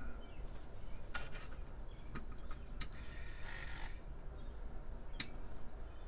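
A few light clicks and a short scraping rustle from hands working at a bench, with a low steady hum underneath.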